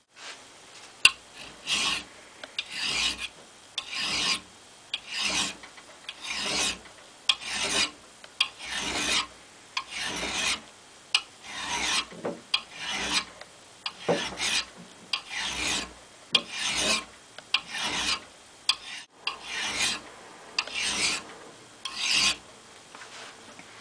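Long flat hand file rasping across the steel cheek of a Wetterlings axe head in steady strokes, a little more than one a second. Small amounts of metal are being taken off to flatten the cheek so the axe bites deeper into wood.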